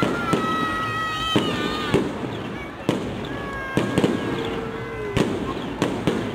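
Fireworks going off: about eight sharp bangs, irregular, over a crowd's hubbub. Long whistling tones that drift slightly down in pitch run through the first two seconds and again around the middle.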